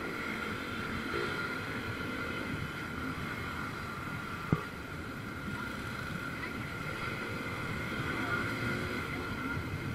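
Wind noise on the microphone of a moving motorcycle, with the steady drone of many motorcycle engines riding together in traffic, and one sharp knock about four and a half seconds in.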